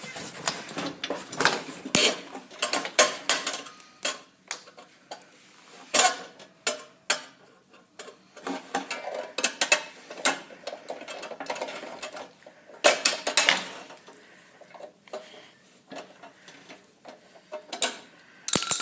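Metal hand tools clinking and clanking against steel bolts and brackets: a socket being fitted onto the nuts and worked, in irregular sharp knocks with short pauses between.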